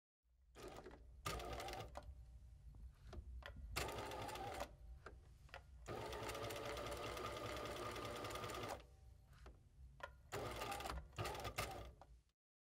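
Bernina 1008 sewing machine stitching through fabric in stop-start bursts, with one longer run of about three seconds in the middle.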